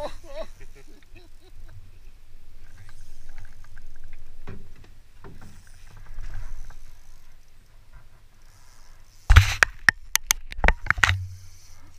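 Boat noise on the water: a low, steady rumble with scattered faint knocks. About nine seconds in comes a quick run of six or so loud, sharp knocks and clatters over about two seconds.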